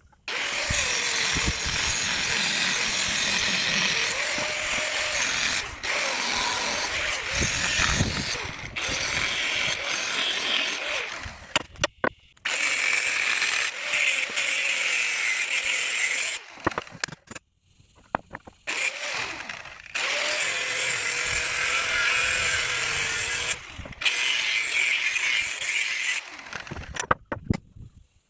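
A handheld power tool running in bursts of several seconds with brief pauses between them.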